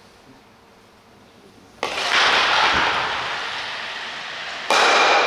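An ice stock comes down on the lane about two seconds in and slides with a loud rushing sound that slowly fades; near the end a second, louder hit starts suddenly, with a faint ringing tone over it.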